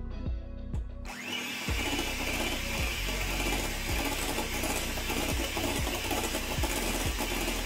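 Electric hand mixer switched on about a second in and running steadily, its beaters whisking cream in a glass bowl.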